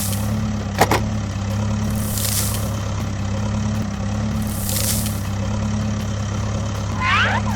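Steady low engine drone of a construction vehicle, with a hiss that swells and fades about every two and a half seconds. A sharp click sounds about a second in, and short high falling squeaks come near the end.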